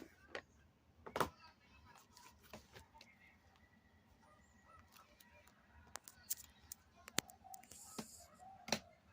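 Scattered clicks and taps of a USB charger, its cable and packaging being handled, the loudest about a second in and near the end.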